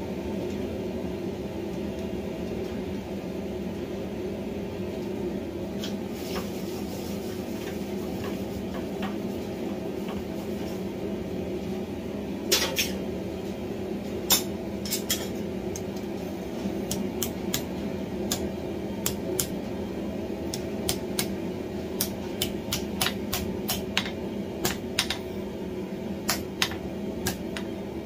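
Steady mechanical hum, with sharp metallic clinks and taps from hot iron tongs being handled and worked at the anvil. The clinks begin faintly, come sharply a few times around the middle, then irregularly about once or twice a second toward the end.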